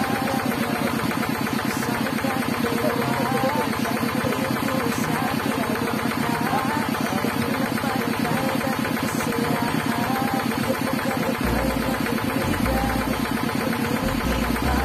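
Small motorized coconut grater running steadily while a coconut half is pressed against its spinning scraper, a fast rattling drone likened to a kuliglig engine. Low thumps join in near the end.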